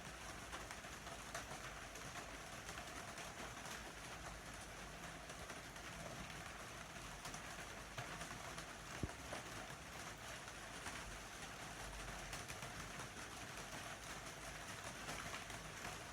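Steady rain falling, with scattered drops ticking on a hard surface and one sharper tick about nine seconds in.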